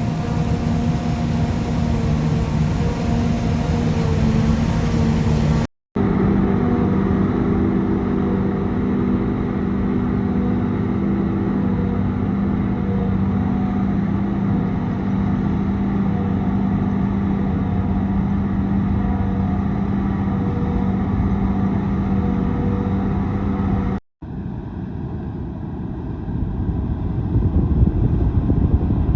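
Engines of large harvest machinery running at a steady hum. The sound cuts out abruptly twice and comes back each time. After the second break it is rougher and noisier, and it grows louder near the end.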